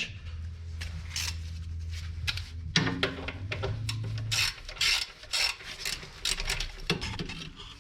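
Ratchet wrench clicking in short, irregular strokes with metal scraping as a rusted 14 mm caliper bracket bolt is worked loose and backed out. A steady low hum sits underneath for the first half.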